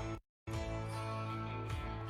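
Background music with sustained notes. It cuts out completely for about a quarter of a second just after the start, then resumes.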